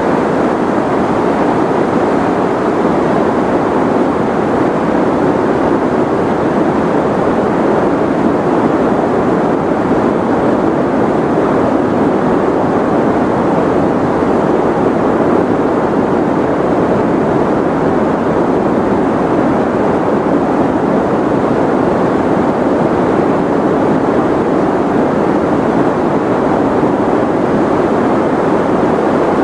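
Continuous white-noise sleep sound: an even, unchanging rush, deep and muffled rather than bright hiss.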